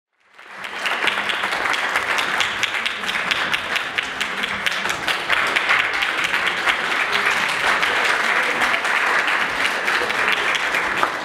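Audience applauding, a dense steady patter of many hands clapping that swells up from silence in the first half second.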